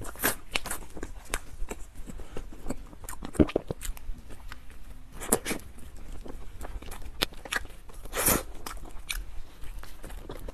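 Close-miked eating sounds: a soft cream-filled bun being bitten and chewed, with many small wet mouth clicks and smacks and a few louder bites.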